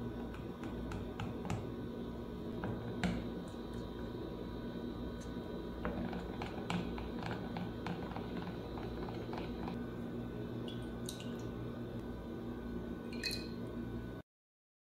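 Hand whisk with coated wires stirring flour into a thin cream-cheese batter in a ceramic bowl: irregular wet clicks and squelches as the wires slap through the batter and tap the bowl, over a steady low hum. The sound cuts off suddenly near the end.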